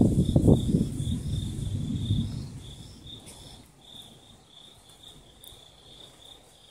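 A thunder rumble dies away over the first two to three seconds, leaving crickets chirping in a steady, high, pulsing trill.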